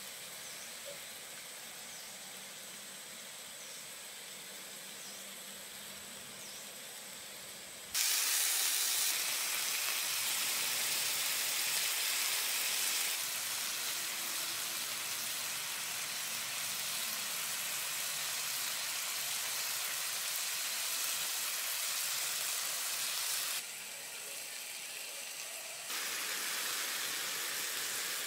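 Beef rolls wrapped around enoki mushrooms sizzling in hot oil on a black griddle pan, a steady hissing sizzle. It is softer for the first eight seconds, then much louder, with a few sudden changes in level.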